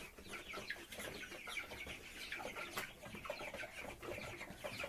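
A flock of young chickens peeping: many short, high, falling calls overlapping, several a second.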